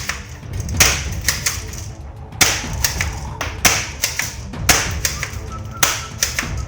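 A series of sharp clicks and knocks, roughly one or two a second at uneven spacing, over steady background music.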